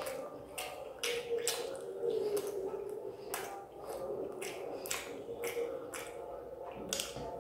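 A run of sharp snapping clicks, about two a second at uneven spacing, over a faint steady hum.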